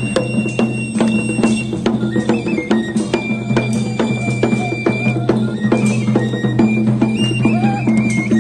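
Tlacololero dance music: a cane flute plays a high melody in held, stepping notes over a small hand drum beaten at a steady pace of about three strokes a second, with the dancers' bells clanking along.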